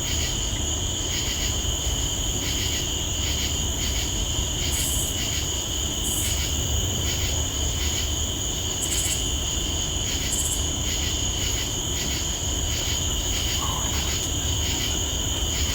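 Insects chirring steadily: a high two-pitched trill pulsing in an even rhythm, over a low steady rumble.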